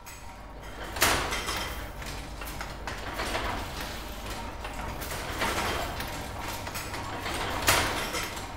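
1930s David Crabtree Axminster gripper loom running, a continuous mechanical clatter punctuated by a heavy clack every two seconds or so as it works through its weaving cycle.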